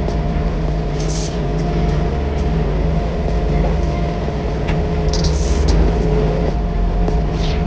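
Yanmar Vio55 mini excavator's diesel engine running steadily under working load, with brief hissing sounds three times, about one, five and seven and a half seconds in.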